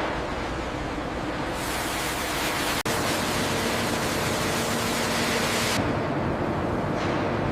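Steady rushing hiss that cuts out for an instant about three seconds in, then resumes with a faint low hum beneath it.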